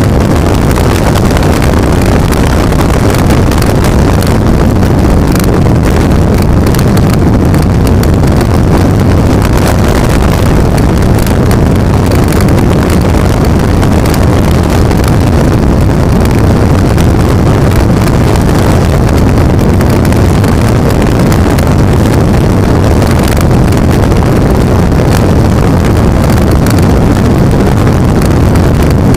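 Skater powerboat's Chief Custom racing engines running at high speed. A loud, steady drone mixes with wind buffeting the microphone.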